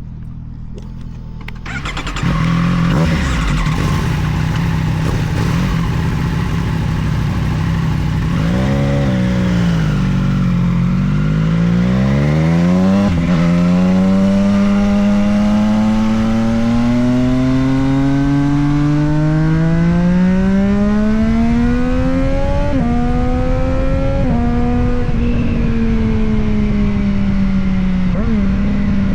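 Triumph Street Triple 765 RS inline three-cylinder engine and exhaust: it jumps up in level about two seconds in and idles steadily, is revved up and down once, then pulls away with its pitch rising steadily for several seconds before two quick upshifts, settling at an even speed near the end.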